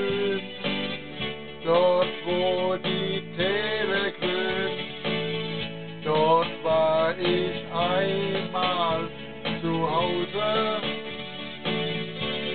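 Electronic keyboard playing an instrumental interlude: a guitar-like lead melody whose notes slide in pitch, over a steady rhythm accompaniment.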